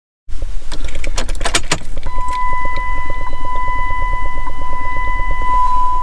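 Keys jangling at the ignition of a 1996 Jeep Grand Cherokee, then a steady high electronic warning tone from the dashboard starts about two seconds in, over a constant low rumble.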